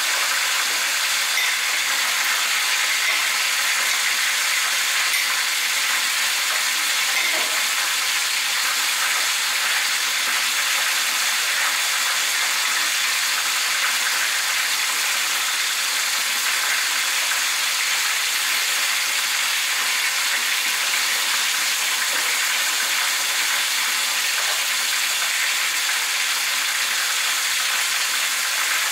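A steady, even hiss, with a couple of faint soft knocks.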